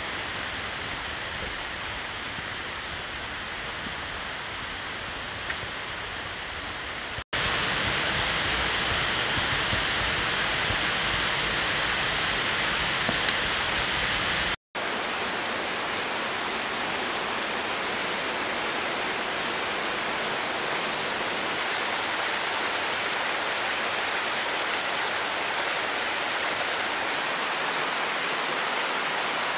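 Steady rush of flowing water from a mountain stream. It comes in three cut-together stretches with brief dropouts between them, and the middle stretch, from about seven seconds in to about halfway, is the loudest.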